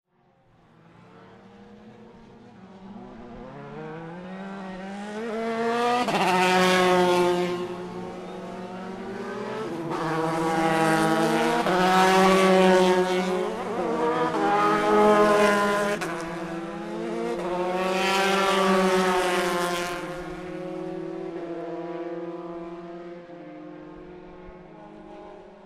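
Racing-car engines running and revving, their pitch rising and falling as they accelerate. The sound fades in from silence and swells several times.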